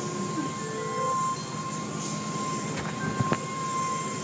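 Automatic tunnel car wash heard from inside the car: a steady rumble and hiss of machinery and water spray as cloth curtains and brushes sweep over the car, under a thin steady whine. There are a few sharp knocks about three seconds in.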